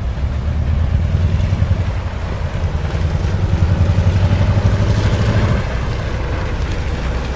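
Train's diesel engine working hard while plowing snow: a steady low pulsing drone with a rushing hiss over it. The sound swells in the middle and eases off a little more than halfway through.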